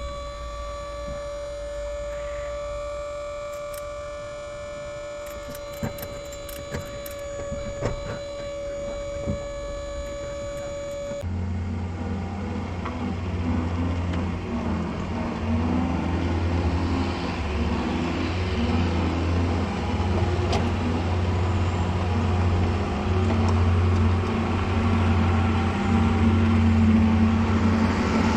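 Truck engine running: about eleven seconds in, a deep steady engine drone takes over and grows gradually louder as the truck gets under way.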